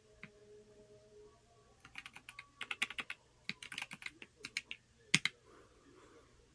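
Typing on a Corne split mechanical keyboard: a pause, then quick runs of keystrokes from about two seconds in, ending with two louder clacks a little after five seconds.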